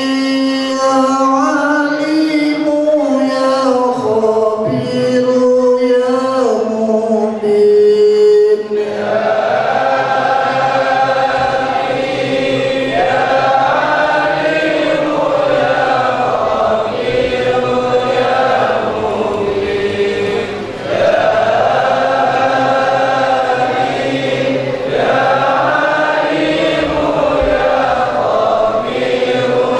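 Male voices chanting Islamic dhikr. A single voice holds long notes at first, then from about nine seconds in a fuller group chant takes over in rising and falling phrases.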